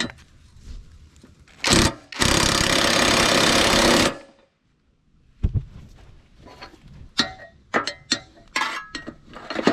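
A power tool tightening a riding mower's blade bolt: a short blip, then about two seconds of loud rattling that stops abruptly. Scattered metal clinks and knocks of tools on the mower deck follow.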